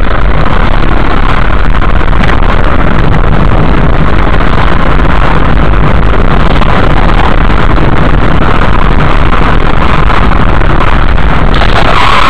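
Car interior driving noise picked up by a dashcam: engine and road noise as one loud, steady hiss that overloads the recording. Near the end the sound changes and gets harsher.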